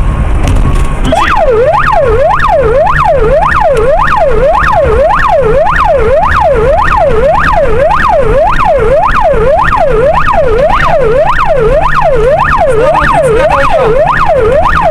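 Police car siren wailing fast, its pitch sweeping up and down about twice a second, switched on about a second in.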